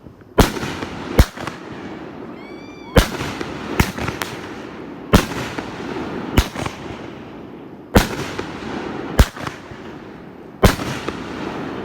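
Honey Badger 500-gram consumer firework cake firing: about ten sharp, echoing booms, unevenly spaced roughly a second apart, with a rumbling haze between them.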